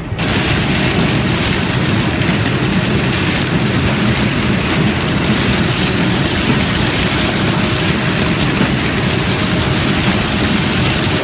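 Harvest machinery running steadily under load, a loud, even mechanical noise with a low engine hum underneath.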